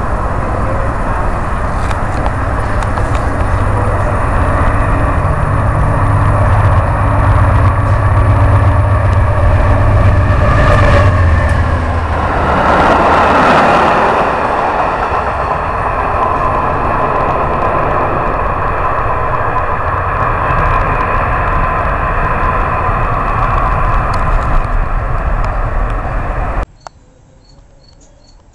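Passenger train passing close by a station platform at speed: a loud steady rush and rumble of wheels on rail, with a deep low rumble as it comes in and the rush peaking as the cars sweep past. About two seconds before the end it cuts abruptly to a much quieter scene with insects chirping in an even rhythm.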